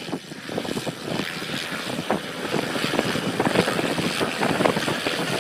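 Helicopter flying in close, its rotor and engine noise growing gradually louder as it approaches.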